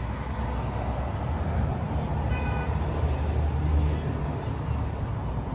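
Steady low rumble of motor traffic, vehicle engines running, swelling about three to four seconds in, with a short high pitched tone like a horn toot about two and a half seconds in.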